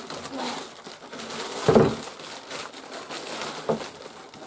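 Clear plastic wrapping crinkling and rustling as it is pulled off a plastic chair seat shell, with a dull thump a little under halfway through.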